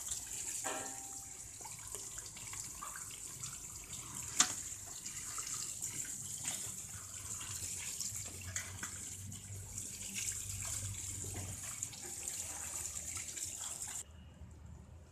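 Water from a garden hose pouring and splashing into a metal pot of live spiny lobsters, with a steady hiss. There is one sharp click about four seconds in, and the pouring stops abruptly near the end.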